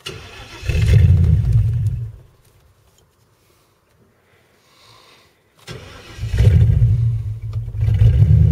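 Ford Crown Victoria's 4.6-litre V8, with no exhaust after the catalytic converters, cranked and started. It catches and runs about a second and a half, then dies. After a pause it is cranked again, catches and keeps running with a deep, open-exhaust rumble.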